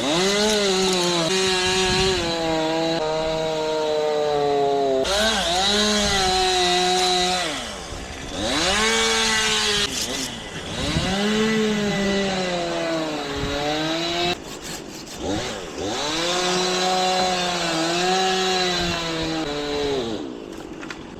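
Gas chainsaw running at high revs and cutting wood, its pitch sagging under load and climbing back, with a few brief let-offs of the throttle between cuts.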